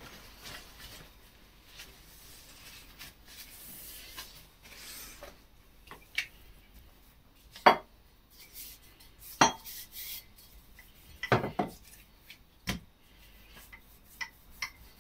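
Pastry being rolled out with a wooden rolling pin on a silicone mat: soft rolling and rubbing, with a handful of sharp knocks and clinks against the worktop, the loudest about eight and nine and a half seconds in.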